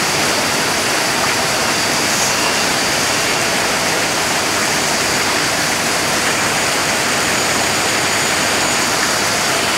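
Steady, unbroken rushing of a waterfall.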